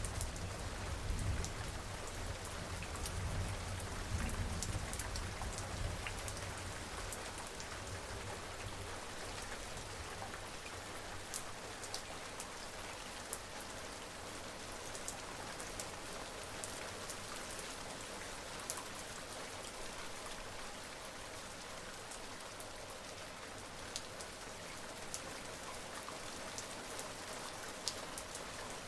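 Steady rain falling on a surface, with scattered sharp drop ticks. A low rumble of distant thunder dies away over the first few seconds.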